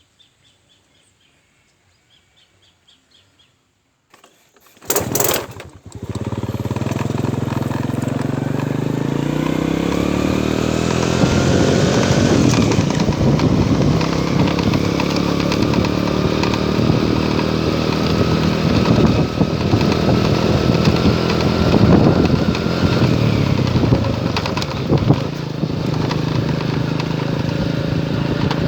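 An engine starts with a loud burst about five seconds in, then runs and speeds up, its pitch rising for several seconds before it holds a steady drone with a few brief dips.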